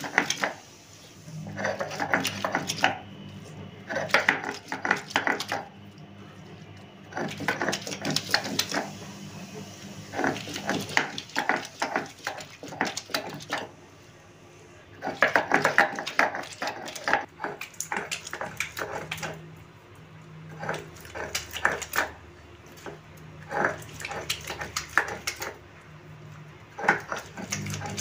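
Stone roller pushed and rocked over a flat sil-batta grinding stone, crushing raw mango, mint, onion and chilli into a coarse chutney. It comes as spells of rapid scraping and knocking strokes, each lasting a second or two, with short pauses between them.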